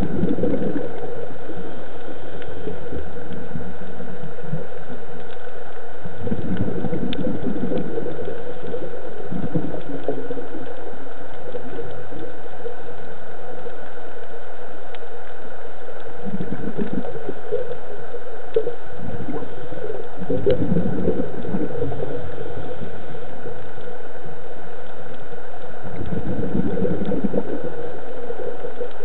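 Scuba diver's exhaled breath bubbling out of the regulator in about five bursts a few seconds apart, heard underwater over a steady hum.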